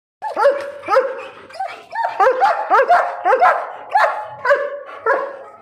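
Alsatian (German Shepherd) dog barking repeatedly, about a dozen barks at roughly two a second.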